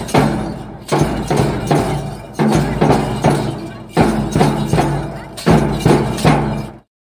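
A children's school percussion band playing a beat: booming bass drum strokes with snare drum, cymbals and clacking tone blocks, struck repeatedly. The sound cuts off abruptly near the end.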